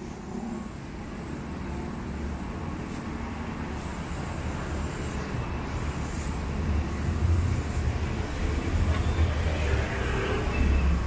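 Street traffic passing: a steady wash of engine and tyre noise, with a low rumble that grows louder in the second half.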